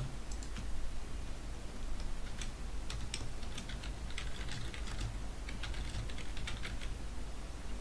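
Computer keyboard typing: irregular runs of quick keystroke clicks over a low steady hum.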